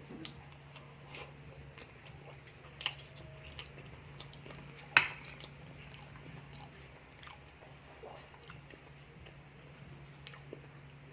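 Close-miked eating: chewing and biting with scattered short clicks and crunches, one sharp loud click about five seconds in. A steady low hum runs underneath.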